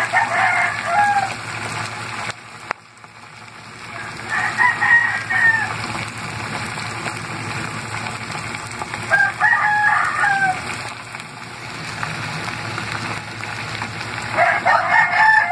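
A rooster crowing four times, about five seconds apart, over the steady sizzle of sliced food frying in oil in a pan.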